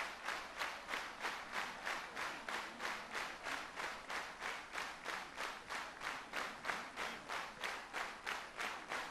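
Large audience clapping in unison, in a steady rhythm of about three claps a second.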